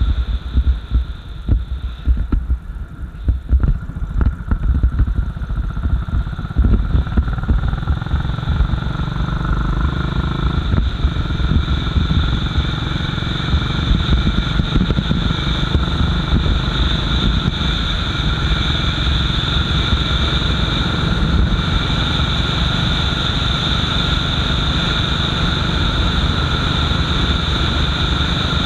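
Royal Enfield Bullet 500's single-cylinder engine running on the move, first as a beat of separate low pulses at low revs, then from about seven seconds in pulling harder and settling into a steady, louder run at speed, with rushing wind noise building over it.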